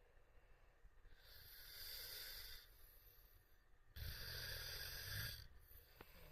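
A man snoring, heard faintly. A long noisy breath comes about a second in, then a louder, deeper snore starts abruptly about four seconds in and lasts about a second and a half.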